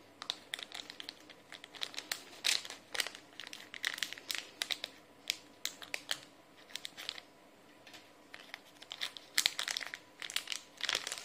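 Clear plastic packaging bag crinkling in irregular bursts as hands handle it and take out small parts, with a quieter lull about two-thirds of the way through.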